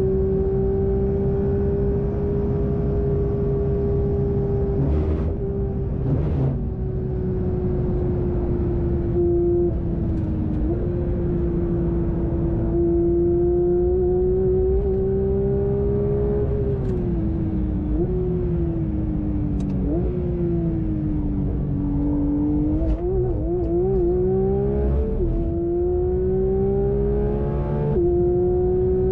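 Porsche 911 GT3 RS's 4-liter flat-six running at high revs under hard driving, heard from on board. The engine note holds high, drops as the car slows in the middle, with several short sharp jumps in pitch as it gears down, then climbs again near the end. A couple of short knocks come about five to six seconds in.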